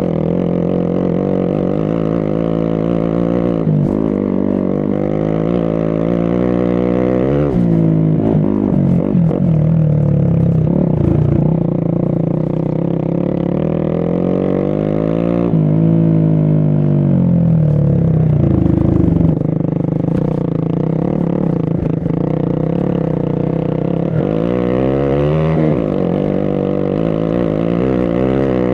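Motorcycle engine running under load on an off-road trail, its pitch rising and falling with the throttle: it climbs sharply about a quarter of the way in and again near the end, and sinks slowly just past halfway.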